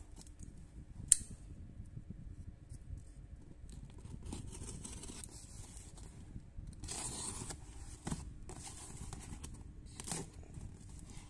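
Box cutter slicing through packing tape and scraping along a cardboard shipping box in several short rasping strokes, with a sharp click about a second in and a knock of the box around eight seconds.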